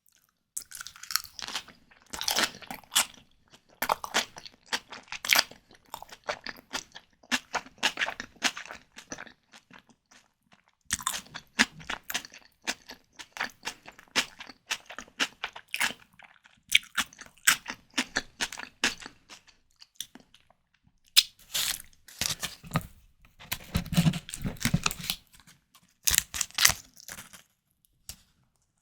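Chewing and crunching mouth sounds from eating white tiger prawns, coming in several bursts of a few seconds with short pauses between them.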